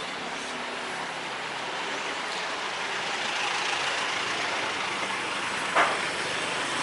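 Steady street traffic noise with vehicle engines running, growing gradually louder, and one brief sharp sound near the end.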